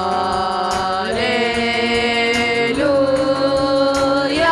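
Woman's and children's voices singing long held notes in harmony, the chord shifting to new pitches about a second in and again near three seconds in.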